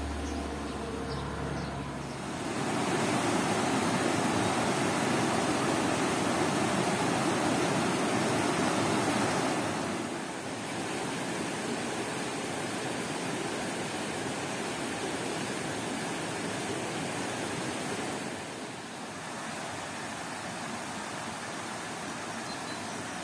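Stream water rushing over rocks: a steady, even rush that begins about two seconds in, loudest for the first several seconds and dropping a little quieter twice later. A steady low hum comes before it.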